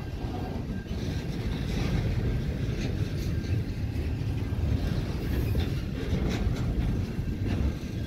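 Intermodal freight train's container well cars rolling past, a steady low rumble of wheels on rail with a few scattered clicks.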